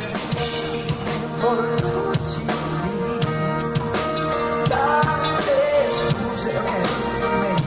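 A live band playing a rock song, with a drum kit keeping a steady beat under guitar and bass.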